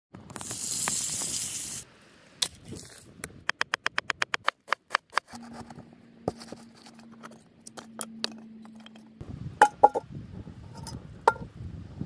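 A cut-together series of cast-iron campfire cooking sounds. First a loud sizzle lasting about a second and a half that stops abruptly, as meat goes into a hot cast-iron skillet. Then a quick run of sharp clicks and taps, and near the end a few ringing metal clanks as cast-iron cookware is set down.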